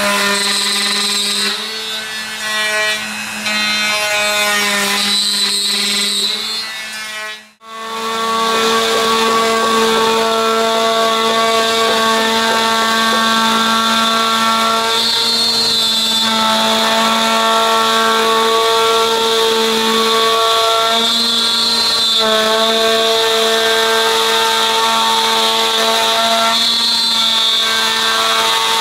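Handheld router running and cutting walnut, first through a dovetail jig. After a brief drop to near silence about seven seconds in, a Festool plunge router whines steadily while cutting a row of slots along a walnut panel's edge, its pitch dipping and shifting every five seconds or so as each slot is cut.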